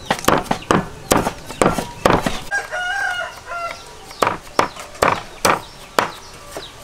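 Cleavers chopping raw chicken on wooden chopping blocks: repeated sharp knocks at an uneven pace. In the middle a rooster crows once, for about a second.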